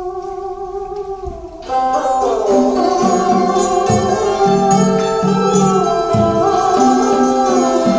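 Live traditional Vietnamese folk ensemble: a lone held melody note bends slowly, then about two seconds in the full group joins with plucked zither (đàn tranh) and moon lute (đàn nguyệt), bamboo flute and drums.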